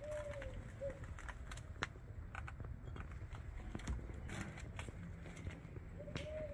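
A dove cooing a three-part coo (short, long, short), once near the start and again near the end. Scattered sharp clicks and rustles of footsteps and handling come in between, as a plate is set down on a wooden board.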